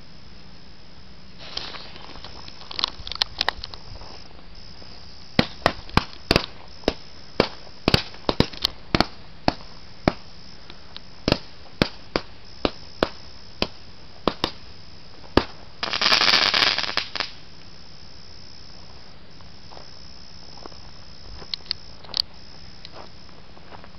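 Consumer fireworks going off close by: a brief fizz and crackle, then about twenty sharp bangs at irregular intervals over some ten seconds, a loud hiss lasting about a second, and a few last small cracks near the end.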